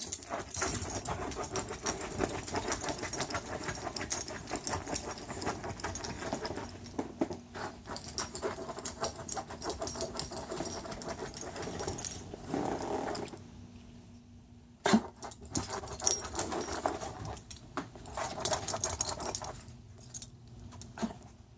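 A dog moving about, making dense rapid clicking and jingling like metal collar tags. There is a short lull about two-thirds of the way through, then a sharp knock and more bursts of jingling.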